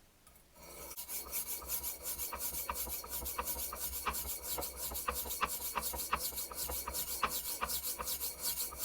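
Steel knife blade scraped in quick repeated strokes across a dry sharpening stone, a continuous rasping. No water or oil is used, so the metal filings clog the stone's pores and make it less abrasive.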